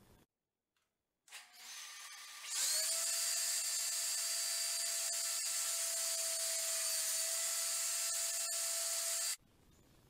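Table saw motor coming up to speed about two and a half seconds in, then running with a steady whine while a board is pushed through the tilted blade for a bevel cut. It cuts off suddenly near the end.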